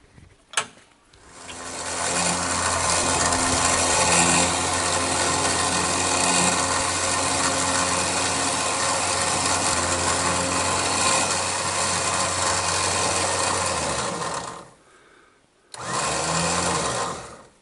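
Electric recovery winch motor running steadily under load, reeling in the line to pull a stuck pickup truck, after a sharp click about half a second in. It stops abruptly about fourteen and a half seconds in, then runs again briefly near the end.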